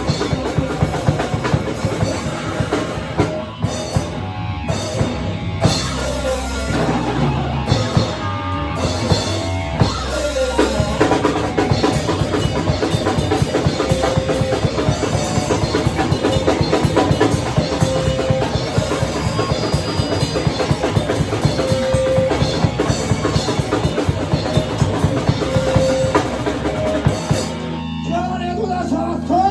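Live rock band playing loud and fast, the drum kit hammering out dense rapid beats over distorted bass and guitar. Near the end the drumming stops and a low chord is left ringing.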